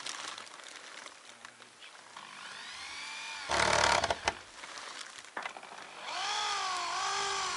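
Handheld electric power tool running. Its motor spins up with a rising whine and ends in a short, loud burst of noise. A few seconds later it runs again with a pitch that dips and wavers, as if working under load.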